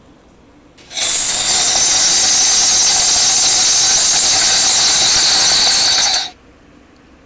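A loud, steady hissing screech played back as a sound clip by a talking-pet app. It starts abruptly about a second in and cuts off abruptly about five seconds later.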